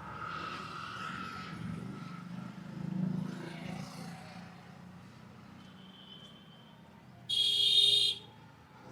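Street background of voices and traffic for the first few seconds, then near the end a loud, high-pitched tone lasting just under a second.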